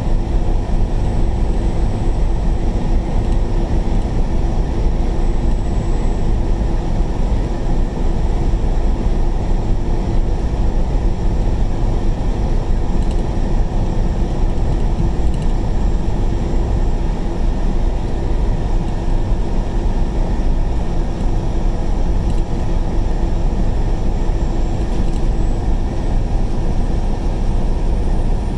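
Steady road and engine noise inside a moving vehicle's cab: an even low rumble with a faint steady hum underneath.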